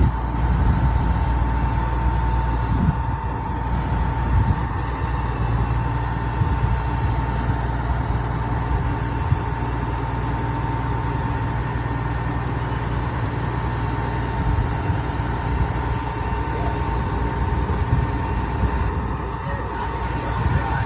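The crane barge's heavy engine running steadily with a constant low rumble and a thin steady whine above it.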